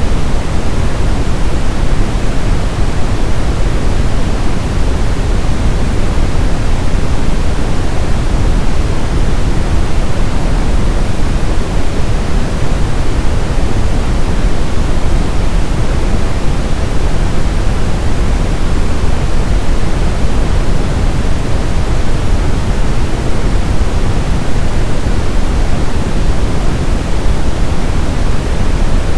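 Brown noise: steady, loud synthetic noise with most of its energy in the deep low end, falling off toward the highs, like a deep even rumble.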